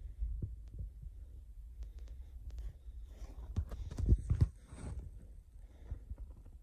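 Low dull thumps and rustling of a hand-held camera being moved, with a few sharp clicks and crackles, loudest about four seconds in.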